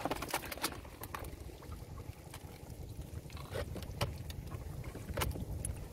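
Irregular sharp clicks and taps from a wet bamboo prawn trap, over a low steady rumble of wind on the microphone.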